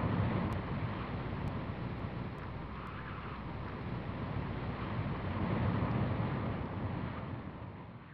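A low, rushing noise like wind, which swells twice and fades out near the end.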